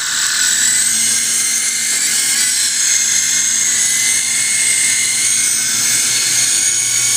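Small indoor RC helicopter (S032G mini) in flight: its electric motors and rotors give a steady, high-pitched whine at flying throttle.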